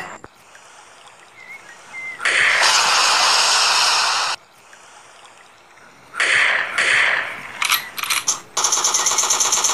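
War sound effects: a long explosion blast about two seconds in, then a few gunshots and, near the end, a rapid machine-gun burst.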